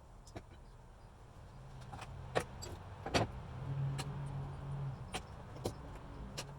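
A low motor hum that swells for a second or so in the middle, with scattered sharp clicks and taps.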